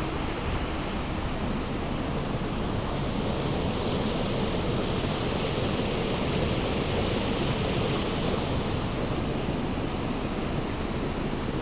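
Monsoon waterfall rushing and splashing: a steady, even roar of falling water.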